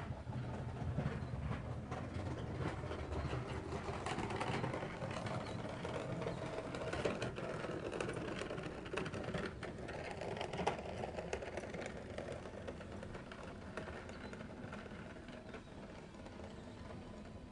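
A boat's engine idling with a steady mechanical clatter, growing fainter toward the end.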